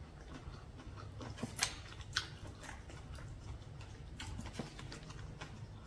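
Faint chewing and eating sounds as someone eats a seafood papaya salad, with a few sharp clicks or snaps in the first half.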